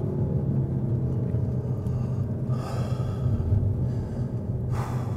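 Peugeot 308 GTi's 1.6-litre turbocharged four-cylinder engine running at low, steady revs as the car drives. Two short hissing bursts come through, one about two and a half seconds in and one near the end.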